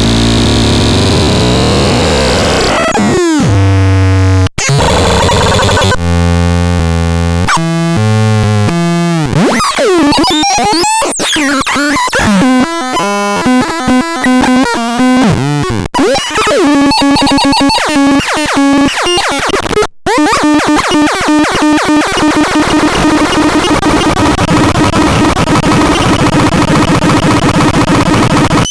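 Synthesizer making harsh, noisy electronic sounds: blocky stepped tones and fast sweeping pitch glides give way to rapid pulsing patterns, then settle into a steady buzzing drone for the last third. The sound cuts out briefly twice.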